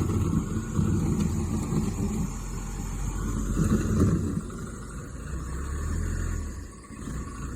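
1998 Case 580L backhoe loader's four-cylinder diesel engine working hard, with a rising and falling low rumble, then settling to a steadier, quieter drone about five seconds in.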